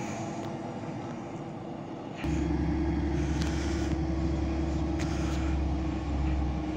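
BR646 (Stadler GTW) diesel railcar running with an engine drone. About two seconds in, a deep rumble and a steady hum come in suddenly and the sound gets louder.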